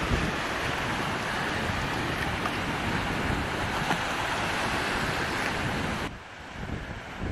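Steady rush of water with wind buffeting the microphone, dropping away sharply about six seconds in.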